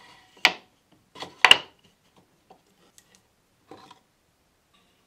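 Plywood divider strips being set into a phenolic-plywood box: two sharp wooden knocks about a second apart, followed by a few lighter clicks and taps.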